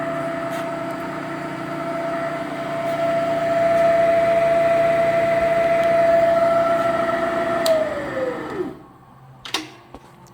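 Clausing Kondia milling machine spindle running steadily at 500 RPM with a steady whine. About eight seconds in it winds down, falling in pitch, to a stop within about a second, followed by a single sharp click.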